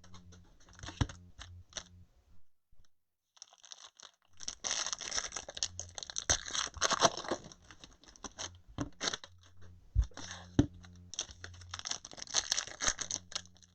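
Plastic packaging being torn open and crinkled by hand as a trading-card box and its packs are opened. The crinkling is mixed with scattered small clicks and one sharp knock about ten seconds in, and there is a short lull near the start.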